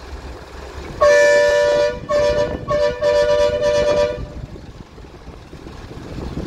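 Loud two-tone horn sounding three blasts: the first about a second in, a short second one, then a longer third of about a second and a half.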